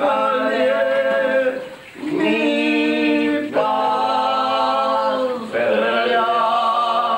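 Men's voices singing a cappella in harmony. Long held notes come in phrases of about two seconds, with a brief pause for breath about two seconds in.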